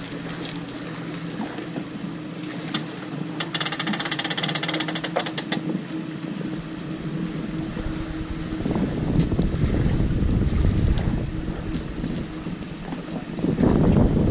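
Boat's outboard motor idling steadily, with a fast run of clicks lasting a couple of seconds. From about halfway, wind rumbling on the microphone grows and covers the engine, and it is loudest near the end.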